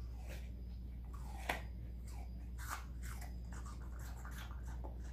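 Welsh Corgi puppy biting and chewing pieces of raw apple: a run of short, crisp crunches, with one sharp, louder crunch about a second and a half in.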